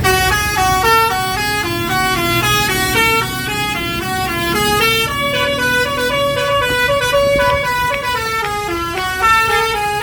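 A tour bus's telolet basuri horn, a set of musical air-horn trumpets, playing a continuous melody of short notes that change pitch several times a second, over a low rumble.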